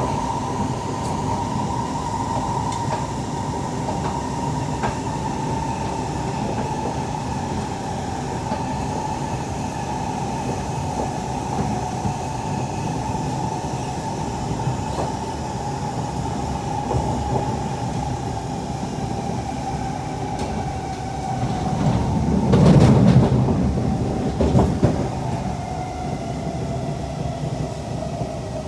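Steady running noise heard inside a Siemens C651 MRT train at speed: wheels rumbling on the rails under a traction-motor whine that slowly drops in pitch. About 22 seconds in, a louder rush swells for a few seconds and then eases off.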